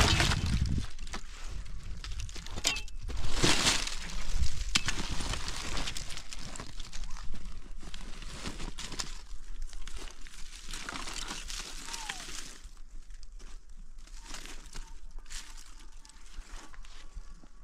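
Irregular crunching and crackling, with several sharper cracks in the first few seconds, then quieter crackling.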